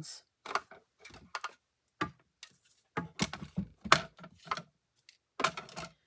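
A run of sharp clicks and knocks of hard objects on a tabletop, as a manual die-cutting machine is set down and craft supplies are moved about. The loudest knock comes about four seconds in.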